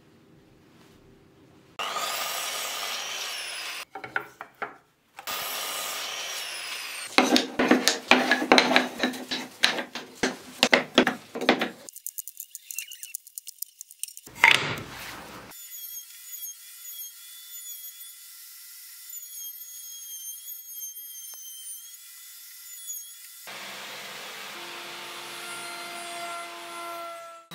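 Woodworking tools working pine boards in a string of short clips: two loud bursts of a power tool cutting wood, then a run of rapid, rough strokes against wood, a single sharp knock, and a quieter stretch of steady tool noise.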